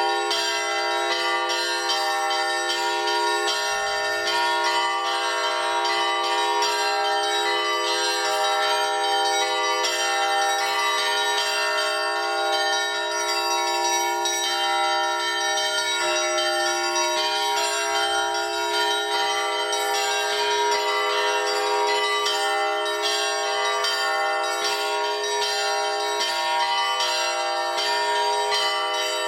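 Russian Orthodox church bells rung in a festive peal by a single bell ringer: many bells struck in a quick, overlapping rhythm, with the deeper bells ringing on steadily under the rapid chiming of the small ones.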